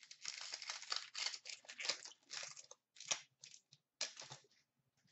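Hockey card pack wrapper being torn open and crinkled in the hands: a dense crackling rustle for about three seconds, then a few shorter crinkles as the cards come out.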